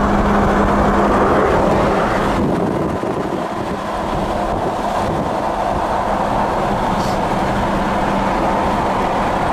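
Steady highway driving noise of cars at speed, heard from a moving car pacing a Pagani Huayra, with a steady low hum in the first couple of seconds; the sound shifts about two and a half seconds in.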